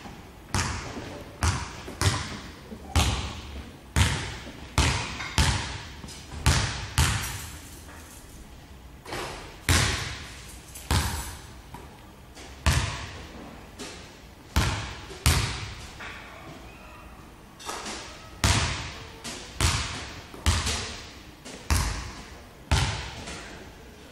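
Basketball bouncing on a hardwood gym floor, single bounces at an uneven pace with a couple of short pauses, each bounce echoing in the large hall.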